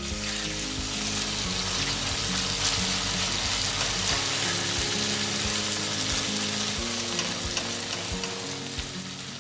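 Thick chili paste (sambal) sizzling in hot oil in a non-stick pan as it is stirred and pushed around with a silicone spatula, with small scraping ticks. The sizzle swells a little in the middle.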